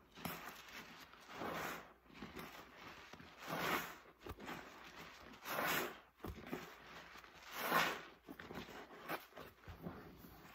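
Stacked soapy sponges squeezed by hand in a tub of dry-paste rinse water. There are four firm squeezes about two seconds apart, each a wet rush of water and foam, with softer crackling of suds between them.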